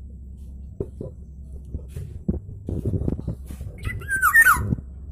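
Black-naped oriole giving a loud, harsh call about four seconds in, with two quick falling notes. Soft low thumps come before it.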